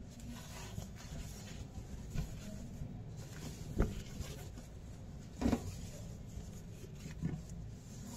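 Non-woven fabric carry bag being handled and laid out on a plastic cutting mat: soft rustling with three short knocks, the first about four seconds in and the others less than two seconds apart, over a low steady hum.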